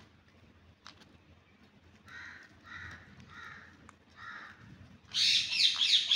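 A green parrot calling: four short harsh calls about half a second apart, then a loud run of rapid screeches starting about five seconds in.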